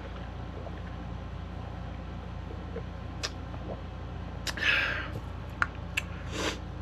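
Quiet drinking and handling sounds from a plastic fountain-soda cup with a straw: a few short clicks and a brief burst of noise about four and a half seconds in, over a steady low hum.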